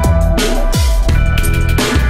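Loud electronic background music with a steady drum beat and deep bass notes that slide down in pitch.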